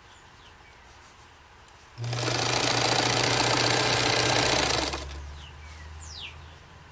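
Bernina 830 Record sewing machine stitching a rolled hem in one run of about three seconds, starting about two seconds in. After it stops, a fainter, lower motor hum fades away.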